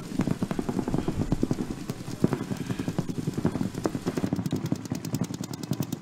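Paintball markers firing in rapid, overlapping strings of shots from several guns at once.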